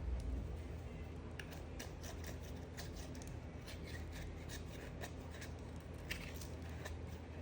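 Knife cutting into a bar of soap: a run of short, crisp, irregular crackles and clicks starting about a second and a half in, over a low steady hum.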